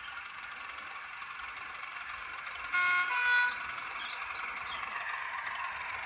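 Hornby Class 31 model locomotive's TTS sound decoder sounding its two-tone horn, two short notes one after the other about three seconds in, over the decoder's steady diesel engine sound from the model's small speaker. Birds chirp faintly.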